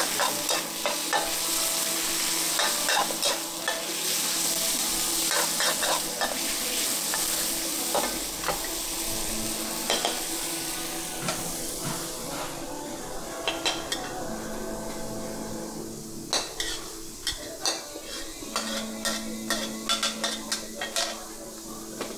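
Food sizzling on a hot pan while a metal spatula stirs and scrapes it, with frequent sharp clacks of metal on metal. The sizzle is strongest in the first half; after about twelve seconds it dies down and the spatula clacks stand out.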